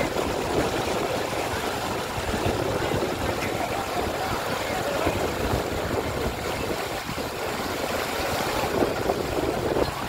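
Shallow river water rushing and splashing down a rocky cascade, a steady noise that starts suddenly.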